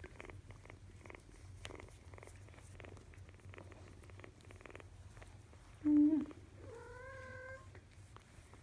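A kitten purring steadily while being petted. About six seconds in there is a short, louder vocal sound, followed by a steadier one held for about a second.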